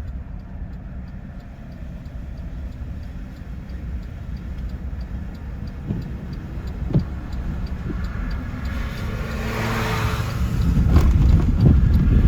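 Car running along a road, a steady low rumble of engine and road noise, growing louder near the end with a couple of rushing whooshes of wind or passing traffic.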